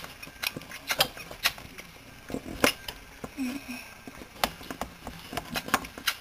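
Scattered light clicks and taps, irregular and a second or so apart, with a brief faint murmur about halfway through.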